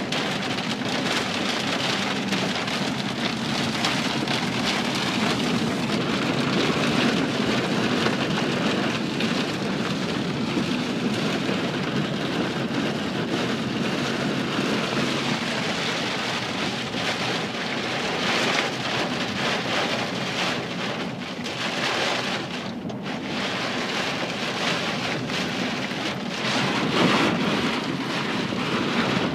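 Heavy storm rain beating on a vehicle's roof and windows, heard from inside the cab as a steady, dense patter that eases briefly about two-thirds of the way through.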